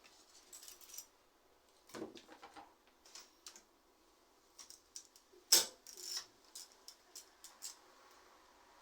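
Metallic clicks and clinks of hand tools and bicycle parts being handled, irregular, with one sharp knock about five and a half seconds in and a quick run of small ticks after it.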